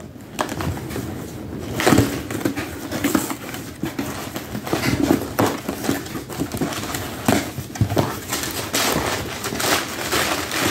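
Small cardboard shipping box being cut open along its tape and its flaps pulled apart: repeated scraping, tearing and rustling of cardboard and packing tape, with light knocks against the box.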